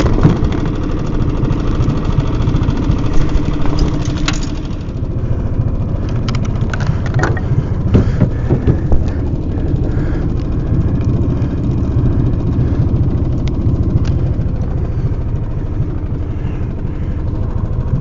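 A boat's outboard motor running steadily at low speed, with a few light knocks and clicks over it.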